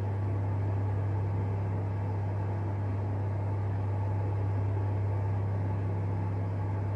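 A steady low hum over a faint hiss, unchanging throughout, with no other sound standing out.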